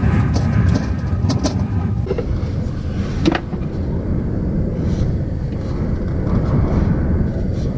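Near-storm-force wind buffeting the van, a steady low rumble, with a few light knocks and clicks.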